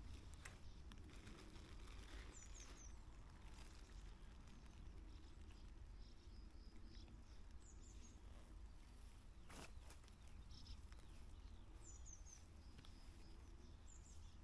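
Near silence: quiet riverside ambience with faint, scattered bird chirps over a low steady rumble, and a single soft click about ten seconds in.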